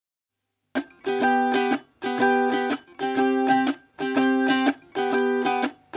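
Background music: a song intro of strummed guitar chords in short repeated bursts, about one a second, starting just under a second in.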